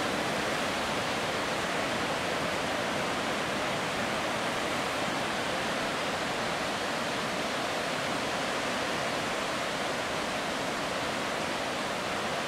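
Heavy hurricane surf breaking and washing over the shallows: a steady, unbroken rush of white water.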